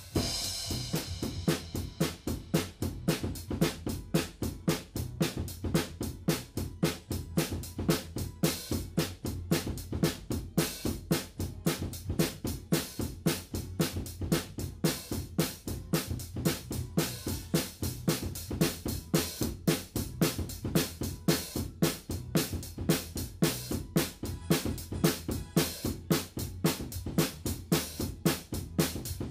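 Acoustic drum kit with Soultone cymbals played in a steady, driving groove of bass drum, snare and hi-hat, with a crash cymbal ringing out at the very start.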